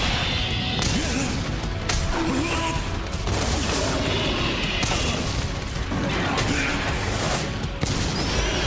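Battle music with several sharp hit-and-crash sound effects laid over it, from a giant-hero-versus-monster fight.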